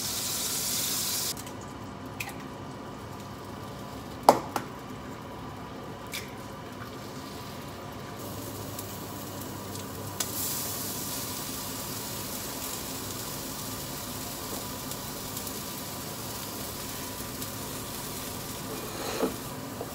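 Eggs, mushrooms and tomato frying in a pan, a steady sizzle that grows louder about ten seconds in. A sharp clack of the pan or spatula about four seconds in, and a few lighter knocks.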